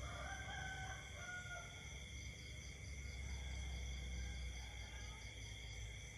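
Night chorus of insects and frogs: several steady high-pitched trilling drones, with a faint pulsing joining about two seconds in. A brief pitched animal call sounds twice in the first second and a half, over a steady low rumble.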